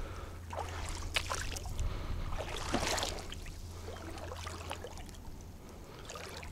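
Shallow water sloshing and splashing in a few short bursts, fading toward the end, over a steady low rumble.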